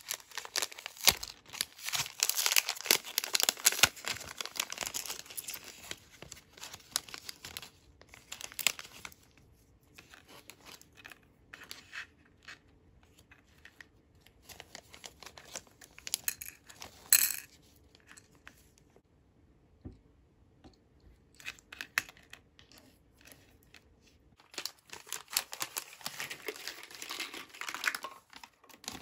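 Thin clear plastic wrapping being torn and crinkled by hand while miniature toy food boxes are unwrapped. It crinkles busily for the first several seconds and again near the end, with scattered small rustles and clicks between and one sharp, louder tear about 17 seconds in.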